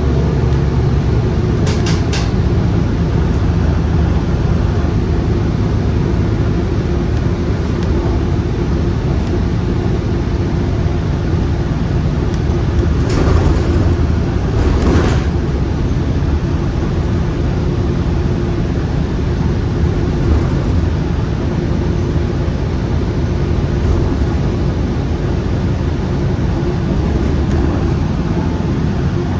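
Gillig Low Floor transit bus heard from inside the passenger cabin while under way: steady engine drone and road noise, with short sharper noises about two seconds in and again around the middle.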